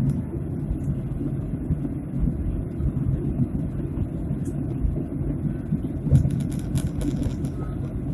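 Airliner cabin noise in flight: a steady low rumble of the engines and the air rushing past the fuselage. A few faint clicks about six to seven seconds in.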